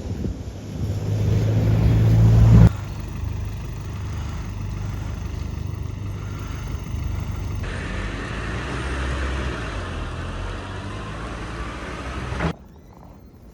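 Motor vehicle engines running, heard over several edited shots. The first grows steadily louder and then cuts off suddenly; after it comes a steadier engine hum.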